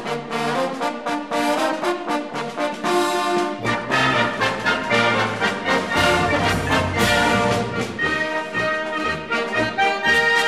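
Instrumental background music led by brass, trombones and trumpets playing a run of short notes, moving to longer held notes near the end.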